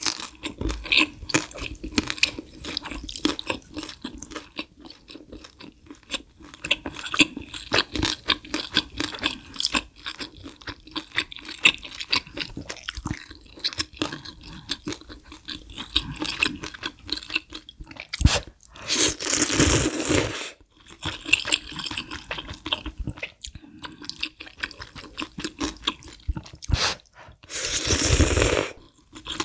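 Close-miked chewing and wet mouth sounds of eating spicy malatang noodles and broth, with two long, loud slurps of noodles and soup from a spoon, one about 19 seconds in and one near the end.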